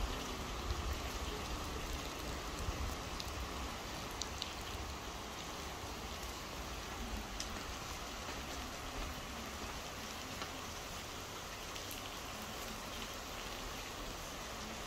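Steady rain falling, with scattered single drops ticking close by. A low rumble fades out in the first second or two.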